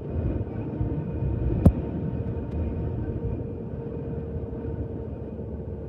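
Airbus A320-family airliner heard from inside the cabin on final approach: a steady low rumble of engines and airflow with a faint steady hum. One sharp click about a second and a half in.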